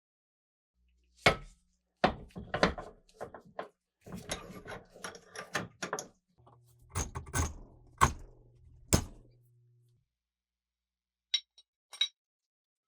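Irregular metallic knocks, clatters and clicks as parts are handled, with a low steady hum for a few seconds in the middle, then two light clicks near the end.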